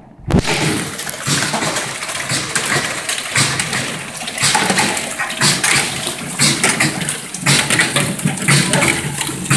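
Rotary apple coring and slicing machine running, a loud, continuous mechanical clatter with many quick knocks and clicks as apples are cored and sliced.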